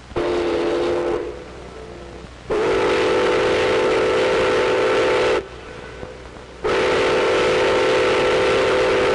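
Pere Marquette Berkshire No. 1225's steam whistle blowing three blasts, a short one and then two long ones. Each blast is a steady chord of several notes. It is blown on the locomotive's first steam-up in 22 years.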